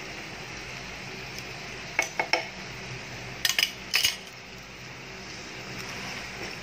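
Stir-fry of lamb, onion and bell peppers sizzling steadily in a nonstick pan, with sharp clinks of kitchen utensils against cookware: three quick ones about two seconds in, and a cluster of several more about a second and a half later.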